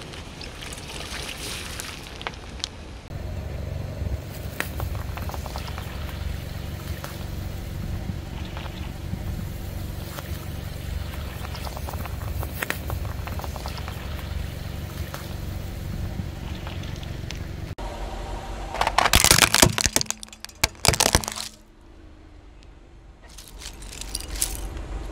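Car engine running with a steady low hum while a tyre rolls onto objects, giving scattered sharp cracks. About three quarters of the way through comes a loud burst of crushing and cracking lasting two or three seconds.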